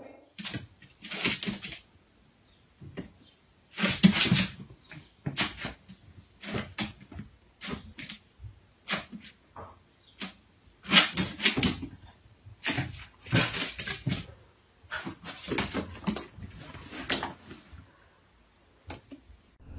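Small dog barking at its own reflection in a mirror, in short, irregular barks with pauses between bursts.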